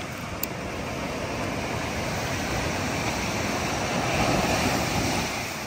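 Steady rushing noise that swells slightly around four seconds in, with a faint click shortly after the start.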